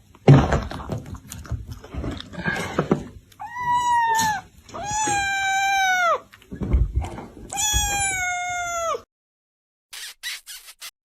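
A cat meowing: three long, drawn-out meows, each falling off at the end. Before them comes a sudden loud knock and a couple of seconds of scuffling and bumps.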